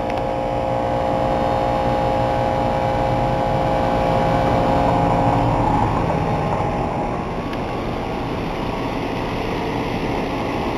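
Goodman central air condenser unit running, its Copeland scroll compressor humming under the steady rush of the condenser fan. A set of steady tones fades out about six seconds in, leaving mostly the even rushing noise.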